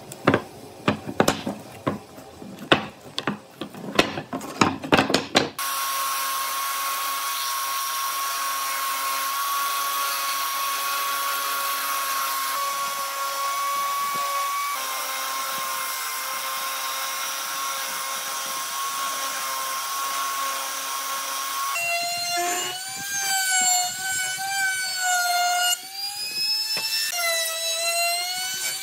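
A run of sharp knocks on wood for about five seconds, then an upturned electric hand tool running at a steady pitch for about sixteen seconds as a curved wooden chair part is worked against it. About 22 s in, a palm trim router takes over, its pitch dipping and rising as it cuts along the edge of a curved board.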